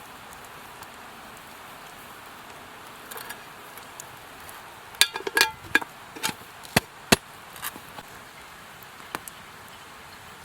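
Cooking in a metal pot over a campfire: a steady hiss, then a quick cluster of sharp clicks and a metallic clink about halfway through.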